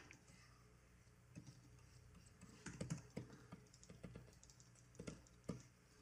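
Faint, irregular clicks and taps of computer keyboard keys, a quick cluster in the middle and a few single taps near the end, over a low steady hum.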